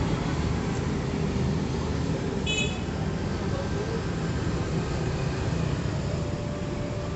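Steady background hum of road traffic, with a brief high chirp about two and a half seconds in.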